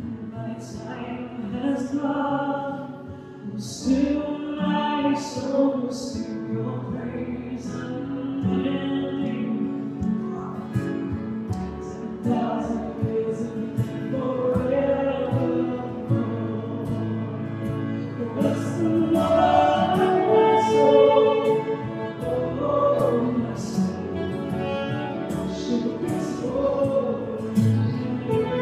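Live worship music: voices singing a slow chorus, with electric keyboard accompaniment and a saxophone played into a microphone.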